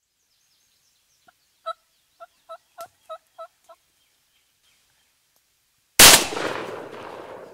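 A wild turkey yelping: a run of about eight evenly spaced notes over two seconds. Then, about six seconds in, a single loud shotgun blast that dies away over about a second and a half.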